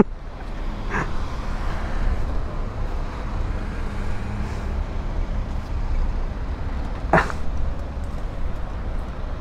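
Motorcycle engine idling with a steady low rumble. Two brief, sharper sounds cut through it, about a second in and again about seven seconds in.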